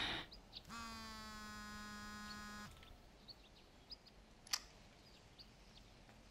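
Mobile phone signalling a call: one steady buzzy tone about two seconds long. It is followed by faint bird chirps and a single click a little after the middle.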